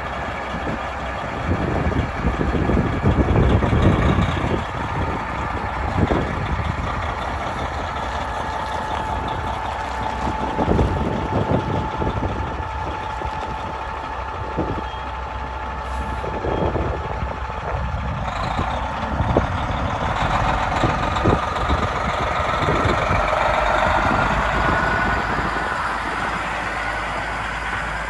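Kenworth T800 truck tractor's diesel engine idling steadily, with irregular low thumps of wind on the microphone.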